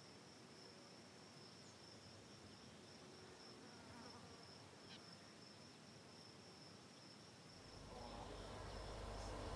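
Faint, steady high-pitched trilling of night insects in a field. A low rumble grows in near the end.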